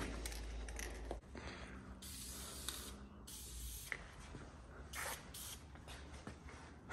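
Aerosol spray-paint can hissing in several short bursts as lettering is sprayed onto a pickup's bed panel.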